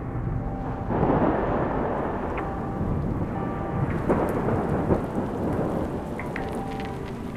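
Thunder rumbling over steady rain. A long roll swells about a second in and surges again around four to five seconds in.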